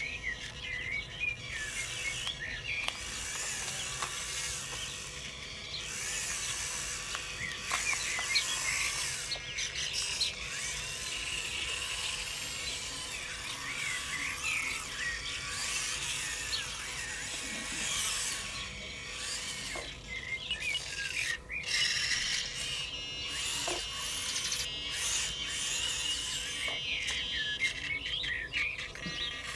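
Several birds singing and chirping over a faint steady tone.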